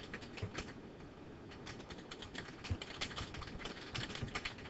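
Typing on a computer keyboard: a fairly faint, quick and irregular run of key clicks, with a short pause about a second in.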